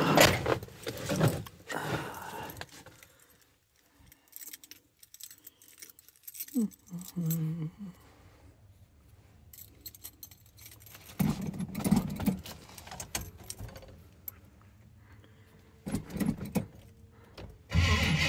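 A key ring jangling at the ignition, with knocks and rustling from someone moving about in the cab. Near the end the 1979 Chevrolet K20 pickup's engine starts suddenly: a cold start at 17°F.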